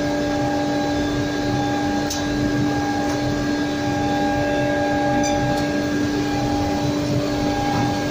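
IMA Compact S-312 automatic edge banding machine running: a steady mechanical hum with a constant tone, and a couple of faint ticks about two and five seconds in.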